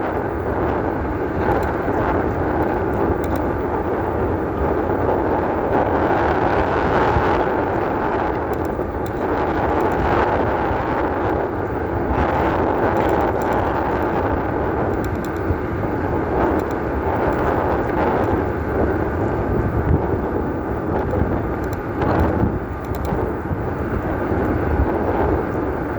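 An e-bike being ridden over an off-road trail: a steady noise of tyres on rough ground and air rushing past, with scattered small knocks from the bumps.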